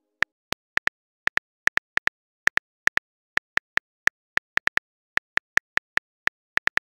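Phone keyboard typing clicks: short, sharp ticks at an uneven pace of about four or five a second as a text message is typed letter by letter.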